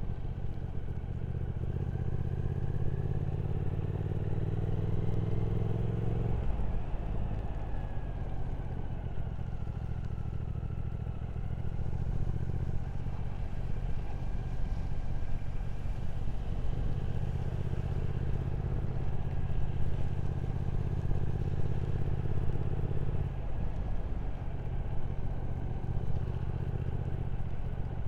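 Motorcycle engine under way, heard from on board. It pulls with rising pitch through one gear, then changes gear about six seconds in and carries on at a fairly steady cruise, with smaller changes in engine speed later on.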